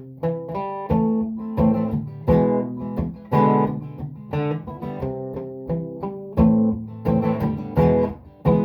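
Acoustic guitar strumming chords in a steady rhythm, with no singing: an instrumental passage of the song.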